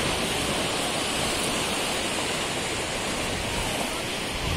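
Sea surf breaking and washing up the shallows, a steady rushing hiss with no pauses.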